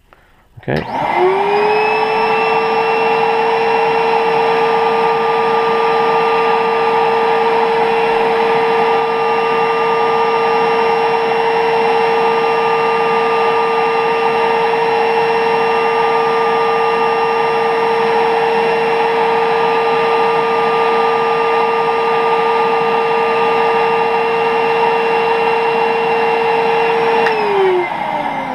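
Record Doctor V record-cleaning machine's vacuum motor switched on, spinning up with a rising whine and then running steadily and fairly loud, sucking the cleaning fluid off the record through its velvet-lipped slot. It is switched off about 27 seconds in and winds down.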